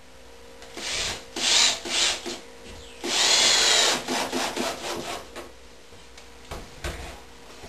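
Cordless drill driving screws into a pine-board box: the motor runs in several short bursts, with one longer run of about a second near the middle.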